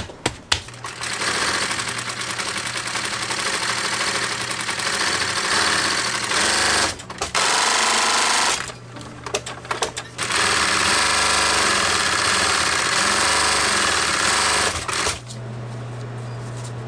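Industrial sewing machine stitching leather boot-upper pieces. It runs fast in three stretches with short stops between, and its motor keeps up a low steady hum when the needle is not running.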